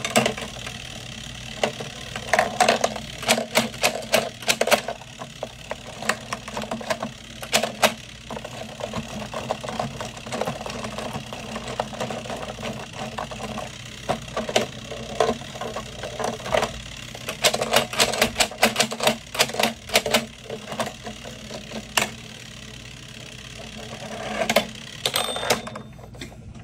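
Screwball Scramble's clockwork wind-up timer running with a rapid steady ticking buzz, under repeated sharp clicks and clatter from the steel ball and plastic levers and buttons of the toy being worked. Near the end the ticking stops as the ball reaches the finish and stops the timer.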